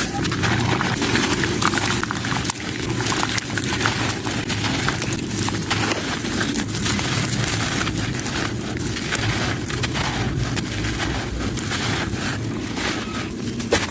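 Gritty sand-cement chunks being crushed and crumbled by hand, a dense, continuous crackling and grinding with many small sharp cracks.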